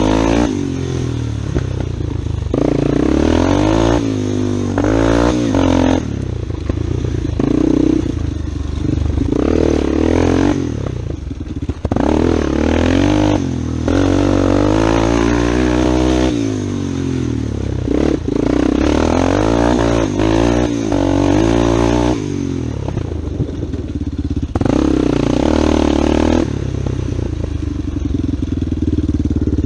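Yamaha Warrior 350 ATV's single-cylinder four-stroke engine under way, revving up and backing off again and again as the throttle is worked, with a few sharp knocks from bumps.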